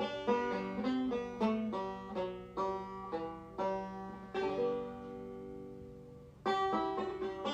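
Background music: fast banjo picking in a bluegrass style, with a held chord that fades about two-thirds of the way through before the picking starts again.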